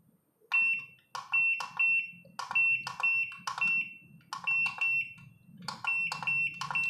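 SkyRC IMAX B6 V2 balance charger's buttons being pressed, each press a click followed by a short high beep from the charger, about a dozen in quick succession as its menus are stepped through.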